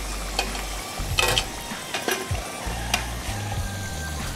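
Potato wedges frying in hot oil, a steady sizzle, while a metal slotted skimmer scoops the golden-brown wedges out, clinking several times against the pot and a metal strainer.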